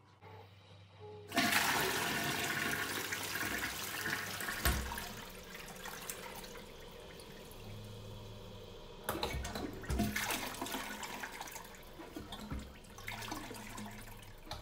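Toilet flushing: a sudden rush of water about a second in, loudest for the first few seconds, then running on more quietly. A few short knocks and louder surges come in the second half.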